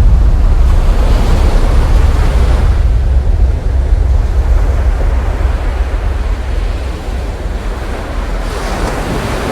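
Ocean surf washing onto a beach, surging near the start and again near the end, with heavy wind rumbling on the microphone.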